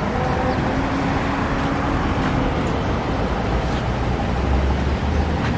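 Steady motor-vehicle noise with a low engine rumble.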